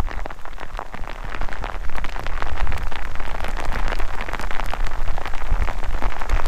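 Heavy rain pattering on the pond and bank: a dense, steady stream of fine drop taps over a low rumble.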